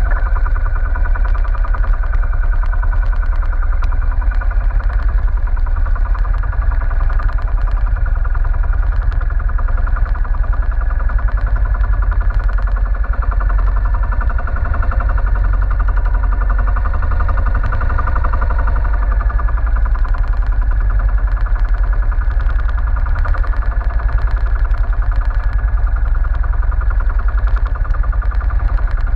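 Small diesel engine of an outrigger fishing boat (banca) running steadily at cruising speed, with a fast, even chugging pulse and water rushing along the hull.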